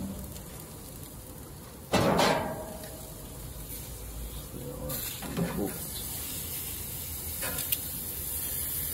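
Beef burger patties sizzling on a charcoal grill's grate, a steady hiss that grows brighter from about halfway through. A loud sudden sound comes about two seconds in, and a sharp metallic click near the end as tongs reach in to turn the patties.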